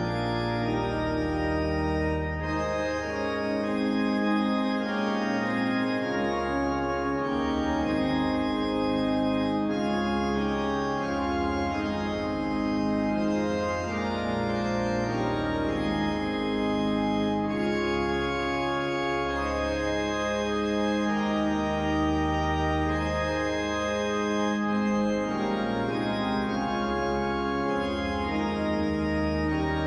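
Organ music: slow, held chords that change every few seconds, with no drums.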